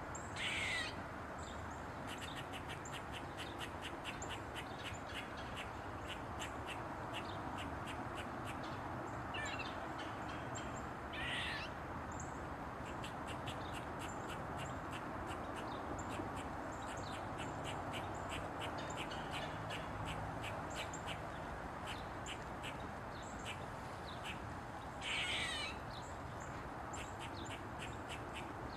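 Eastern gray squirrel barking: a long rapid run of short, sharp barks at about five a second, broken three times by a longer, louder squawking call. It is the squirrel's alarm call.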